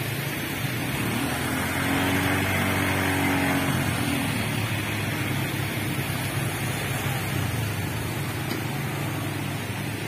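A motor vehicle drives through shallow floodwater; its engine note rises and then falls in pitch between about two and four seconds in, over a steady wash of water and rain noise.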